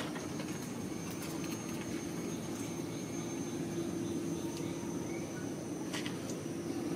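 A steady low mechanical drone, like a motor running, with a few faint clicks and taps over it.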